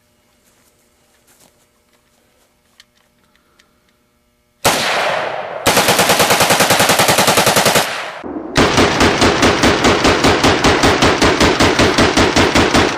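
Semi-automatic AK-47-pattern rifle bump-fired with a homemade bump fire stock. After about four and a half seconds of quiet come two long strings of rapid shots, like automatic fire, with a brief pause between them; the second string is the longer.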